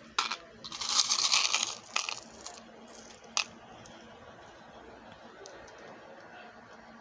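Small gold-tone oxidised metal charms and beads jingling and clinking against each other as a hand handles them in a plastic compartment box. The jingling is loudest between about one and two and a half seconds, with a single sharp clink a little later, then only faint ticks.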